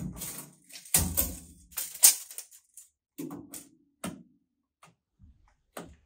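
A steel tape measure being handled and repositioned over a glass-topped chest freezer: a string of short scrapes and clicks, most of them in the first half, then only a few light ticks.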